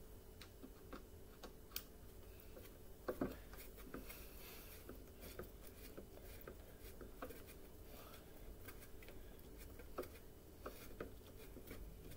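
Faint clicks and scraping of a screwdriver driving screws into an upright vacuum cleaner's handle, with a few sharper clicks.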